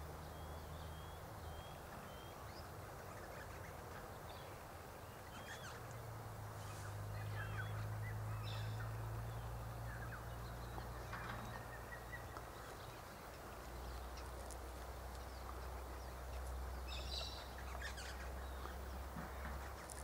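Faint, scattered bird chirps and short calls over a low steady hum, the hum swelling for a few seconds near the middle.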